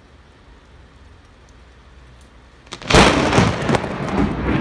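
Thunderclap from a very close lightning strike. It breaks out suddenly and very loud about three seconds in, with several sharp cracks in its first second, then goes on as a loud rumble.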